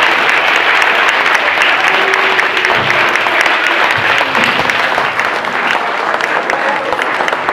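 Audience applauding: dense clapping from many hands that eases off slightly toward the end.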